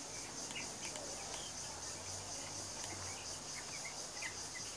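Faint steady high-pitched insect chorus, like crickets, with a few faint short chirps.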